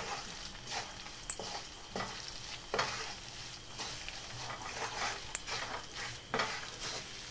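Wooden spatula stirring and scraping a thick mix of ragi flour and jaggery syrup around a metal kadhai, in uneven strokes about once a second, with one sharp knock against the pan about a second in.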